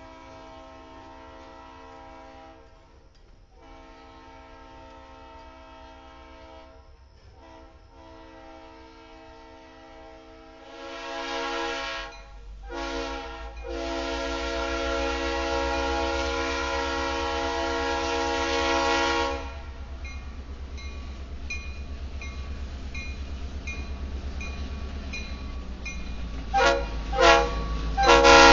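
Diesel locomotive air horn sounding a series of blasts, quieter at first, then louder, ending in one long blast. Then the low rumble of the EMD GP38-2's 16-cylinder diesel as the locomotive rolls past close by, with a few sharp bangs near the end.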